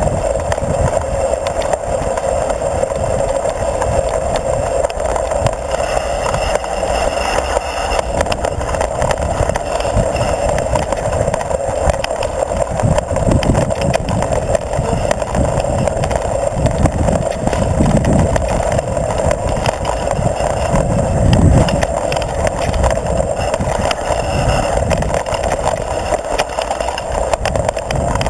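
Mountain bike rolling fast over a dirt singletrack, heard from a camera mounted near the front wheel: a steady drone of knobby tyre and wind noise, with irregular low thumps and rattles as the bike hits bumps.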